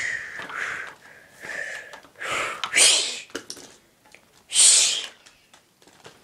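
A child's breath close to the microphone: several short, breathy hissing puffs, each under a second, with the loudest one near the middle.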